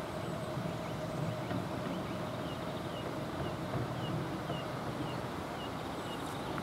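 Level-crossing warning bell, the classic electric bell of an AŽD 71 crossing, ringing steadily with the barriers down, over a low rumble.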